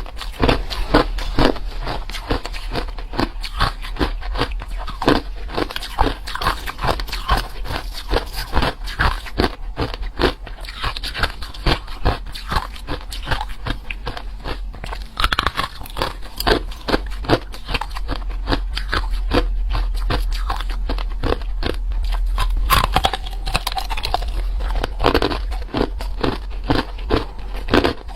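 Hard ice being bitten and chewed, a dense, irregular run of sharp crunches. A steady low hum runs beneath.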